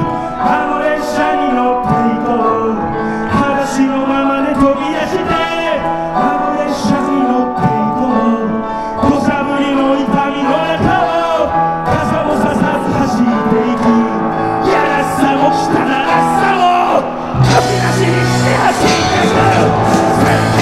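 Live rock band playing: a male singer over drums, bass and electric guitars. About seventeen seconds in the band comes in harder, louder, with heavier bass and crashing cymbals.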